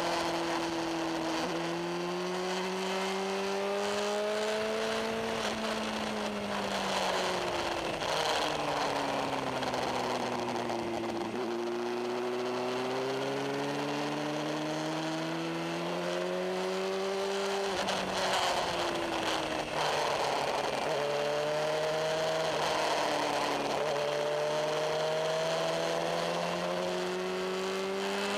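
Suzuki GSX-R750 K5's inline-four engine at speed on track, its pitch climbing in long pulls and falling off several times, with a sharp drop about eighteen seconds in. Wind rushes over the onboard microphone throughout.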